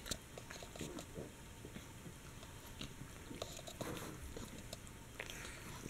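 Fawn pug chewing and gnawing on a plush hamburger toy, faintly, with scattered small clicks and a few soft breathy snuffs.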